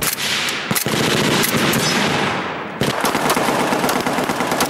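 Rapid gunfire, many shots in quick succession from a rifle and then a pistol, with shots overlapping from other guns on the firing line. The firing eases briefly just under three seconds in, then picks up again.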